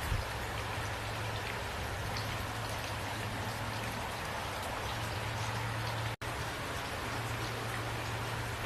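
Steady rain falling, with scattered drops pattering on a surface over an even hiss and a steady low hum underneath. The sound cuts out for an instant about six seconds in.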